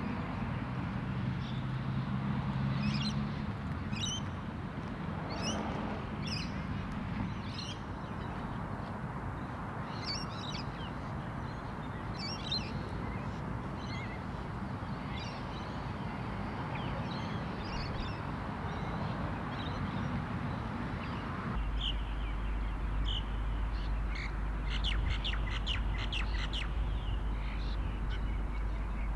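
Birds calling: short, sharp, high chirps scattered through, then a quick chattering run of calls near the end, over steady low background noise.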